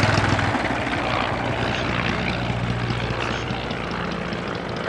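De Havilland DH60X Moth biplane in flight, its 105 hp Cirrus Hermes II four-cylinder inline engine and propeller running steadily. The engine note gradually fades.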